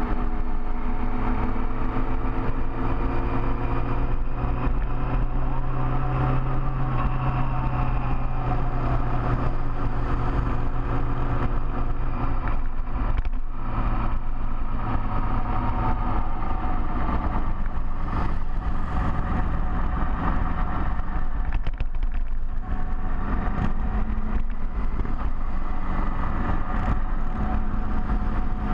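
Big motorcycle engine running steadily under way, its pitch easing up and down a little as speed changes, with deep low rumble underneath.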